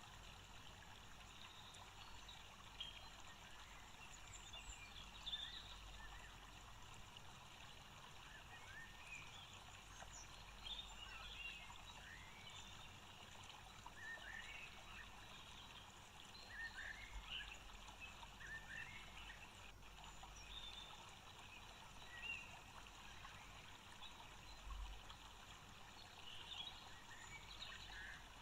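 Near silence: a faint steady hiss of room tone, with many tiny, faint sounds scattered through it.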